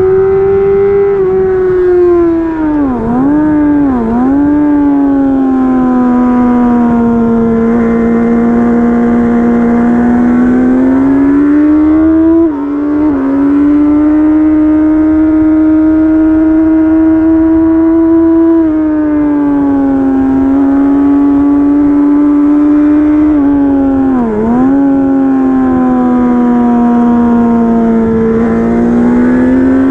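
Sports motorcycle engine running at high revs under hard acceleration on a race track, its note rising and falling with the throttle. The revs dip sharply twice around three and four seconds in and again about twenty-four seconds in as the rider rolls off and changes gear, with another brief drop and step in pitch about twelve seconds in.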